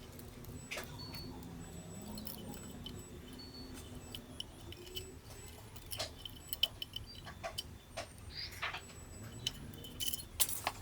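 Scattered small clicks and light metallic taps of hand tools and small parts as a Canon EOS Rebel T6 (1300D) camera is taken apart, growing busier about halfway through, with the sharpest clicks near the end.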